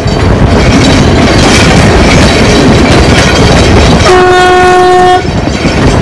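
Passenger train running, heard from an open carriage window as a loud, steady rush of wheel and running noise. The locomotive's horn sounds one steady blast of about a second, about four seconds in.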